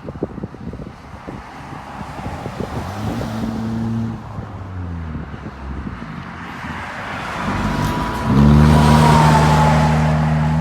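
A motor vehicle's engine running over wind noise, its pitch gliding up and down. About eight seconds in it grows suddenly louder and holds a steady pitch. A thin high tone runs with it near the end and dips briefly.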